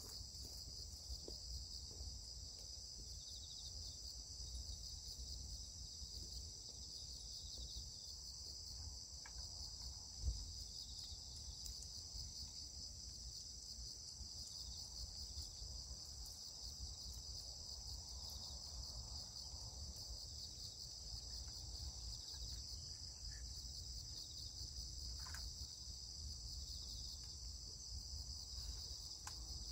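Steady, high-pitched chorus of insects such as crickets chirring without a break, over a faint low rumble, with one short knock about ten seconds in.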